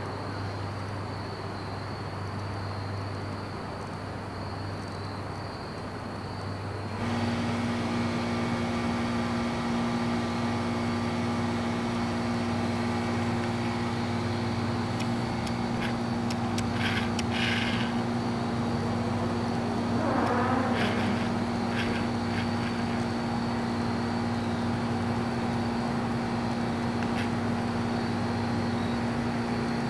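A steady machine hum with a fixed pitch comes in suddenly about seven seconds in and holds over the outdoor background, with a thin high whine throughout and a short falling pitch sweep about twenty seconds in.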